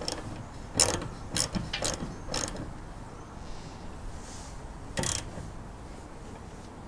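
Small socket ratchet clicking in short bursts as a clamp bolt is tightened: about five strokes in the first two and a half seconds, then one more about five seconds in.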